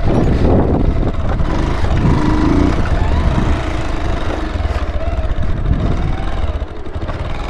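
Bajaj Pulsar 220 motorcycle's single-cylinder engine running steadily as the bike is ridden along a bumpy dirt trail, a continuous low rumble.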